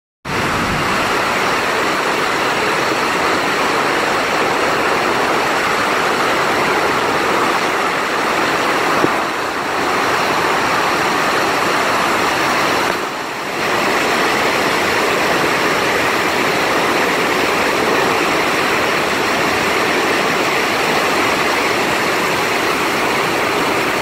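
Pailón del Diablo, a large waterfall plunging into a rock gorge close by: a loud, steady rush of falling water that dips briefly twice.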